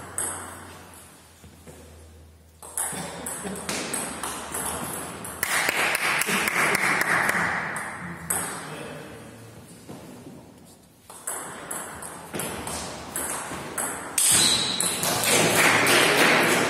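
Table tennis rallies: the ball clicking sharply off the rackets and the table in quick, irregular runs, with short pauses between points. Twice the clicking gives way to a louder stretch of even noise.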